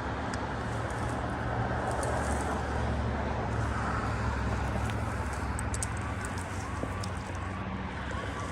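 A steady low engine hum, like a motor running at low speed, with a few faint clicks.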